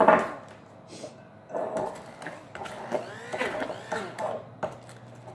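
Electric stick blender running in a glass bowl of butter, sugar and egg. Its motor pitch dips and rises over and over as it works through the thick mixture.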